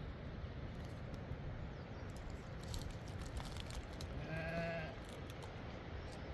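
A single short bleat from a sheep or goat about four seconds in, over low rustling and a few faint clicks.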